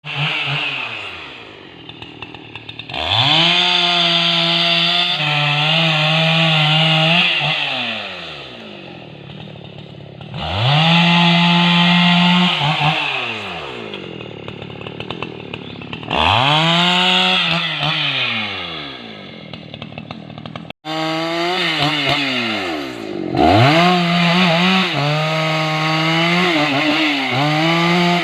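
Husqvarna 288 two-stroke chainsaw cutting rubber-tree wood. It is revved to full throttle and held for a few seconds at a time, then drops back to idle, about five times over, with the pitch wavering while it is held.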